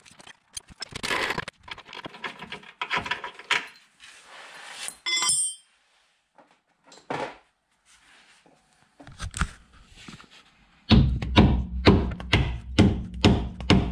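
Hand tools clattering and clicking on metal under a van's front suspension, with a short metallic ring about 5 s in. From about 11 s in, a fast run of hammer blows on metal, roughly three a second.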